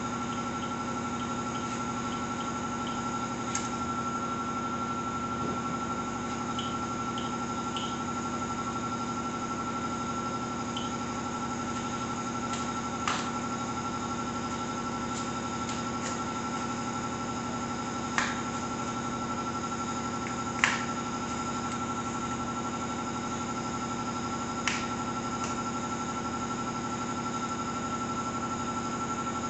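Steady mechanical room hum with a constant high tone, broken by a few sharp clicks and knocks from parts and tools being handled on a bicycle being assembled; the loudest knock comes a little past two-thirds of the way in.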